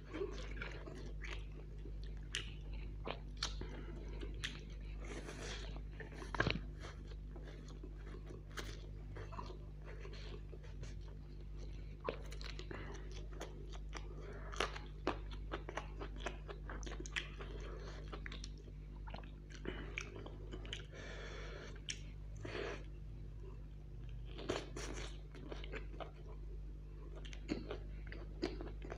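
A person chewing and crunching food close to the microphone: chow mein noodles, fried chicken drumsticks and a green chilli. It goes as a run of irregular sharp crunches and bites over continuous chewing.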